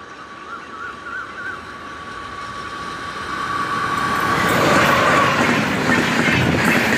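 WAP-4 electric locomotive hauling an express train, approaching at high speed and passing close by. It grows from a distant rumble into a loud rush of wheels on rail, with clickety-clack from the coaches as they go past near the end.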